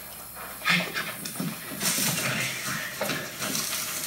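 Corn stalks and leaves rustling in uneven swishing bursts as someone moves through a cornfield, from a film soundtrack played back through home-theater loudspeakers in a room.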